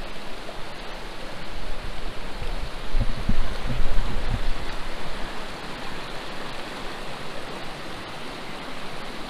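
Shallow stream running over rocks, a steady rushing of water. About three seconds in, a second or so of low thumps and rumbling.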